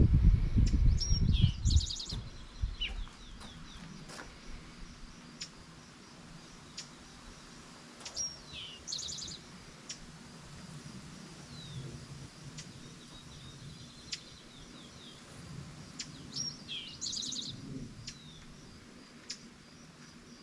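A songbird sings the same short phrase three times, several seconds apart: a sharp high note, then a quick falling trill. A low rumble fills the first two seconds and is the loudest sound.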